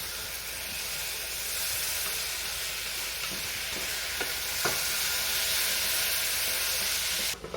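Food sizzling as it fries in a pan: a steady hiss with a couple of light utensil taps in the middle. The sizzle cuts off suddenly near the end.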